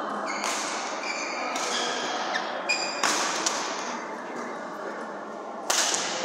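Badminton rally: about five sharp racket strikes on the shuttlecock over several seconds, each with a short high ping and echo in a large hall. The hardest hit comes near the end.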